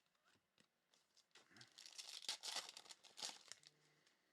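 Trading-card pack wrapper being torn open: a crinkly tearing rustle that starts about a second in and lasts about two seconds, with a few light clicks of card handling around it.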